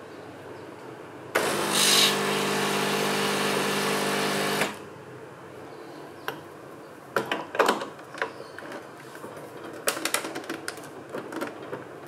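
De'Longhi manual espresso machine's pump buzzing steadily for about three and a half seconds as water runs through the group head, then stopping. Afterwards come several sharp metal clicks and clacks as the portafilter is fitted into the group head.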